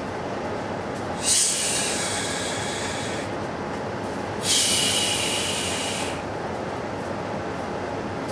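Two bursts of high-pitched hiss, each starting suddenly and fading over about two seconds, over steady background noise.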